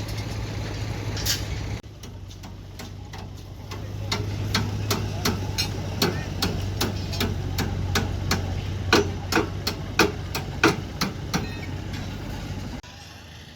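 Heavy machinery's diesel engine running steadily, with a series of sharp metallic knocks at about two or three a second through the middle.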